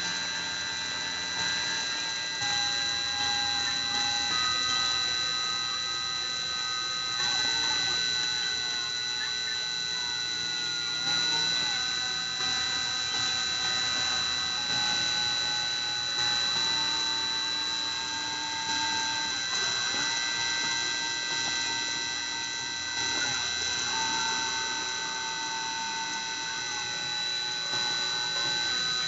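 A Dremel rotary tool on a Cyclone PCB CNC spinning at a steady high whine while it mills acrylic. Over it the stepper motors hum short tones that jump to a new pitch every second or few as the axes change speed and direction.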